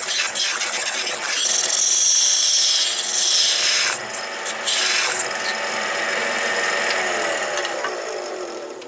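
A wood-lathe turning tool cuts into a spinning wooden blank with a steady scraping hiss over the lathe's faint whine. The cutting eases about five seconds in, and the sound fades away near the end.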